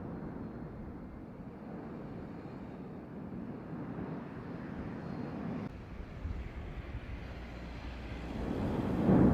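Volcanic eruption of Cumbre Vieja, a steady low rumble that shifts abruptly about halfway through and swells louder near the end.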